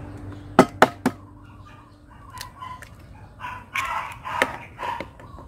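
An egg tapped sharply three times against a ceramic bowl to crack it, about half a second in. Then a rooster crowing, from about three and a half seconds in.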